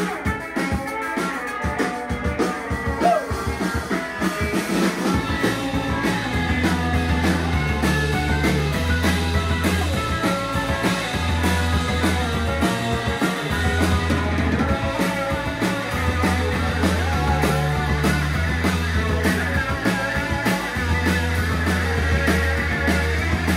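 Live rock band playing an instrumental passage on electric guitars and drum kit, with a bass line of long held low notes coming in about five seconds in.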